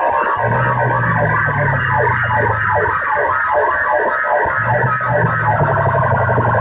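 Loud, distorted music played through a DJ sound-box system, with a siren-like effect over it and a held bass note that drops out in the middle and returns near the end.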